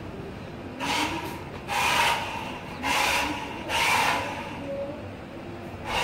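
Rechargeable remote-control toy car's small electric drive motor whirring in short bursts, four times about a second apart and again near the end, as the throttle is pulsed.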